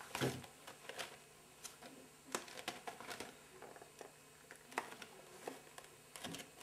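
Scattered light clicks, taps and rustles of hands handling a small cardboard puzzle box and its packaging, working it open.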